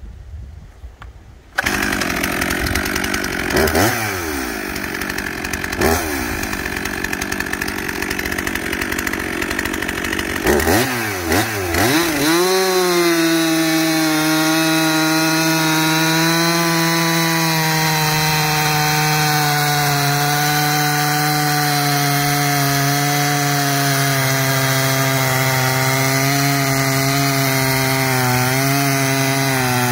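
Two-stroke 362 chainsaw fitted with a freshly grinder-sharpened chain. It comes in suddenly, is blipped up and down a few times, then from about twelve seconds in holds a steady high-revving note while cutting into a poplar log, the pitch sagging slightly near the end.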